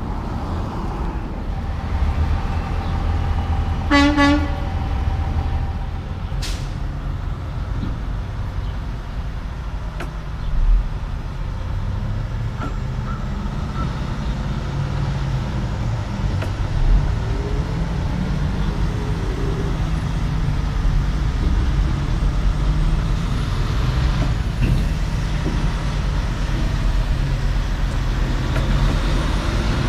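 Diesel engine of a semi tractor pulling a curtainside B-train double trailer, running with a steady low rumble as the rig moves off. A short horn toot sounds about four seconds in.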